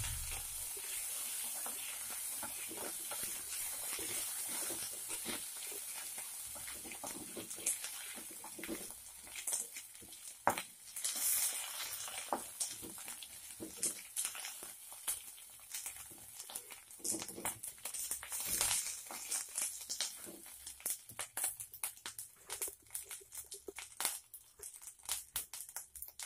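Ginger paste frying in hot oil in a kadai: a steady sizzle that dies down over the first ten seconds or so, giving way to scattered pops and crackles.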